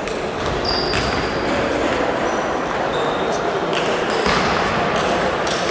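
Table tennis rally: a handful of sharp clicks, with a short ring on some, as the ball strikes paddles and the table, spread unevenly over a steady hubbub of voices in a large hall.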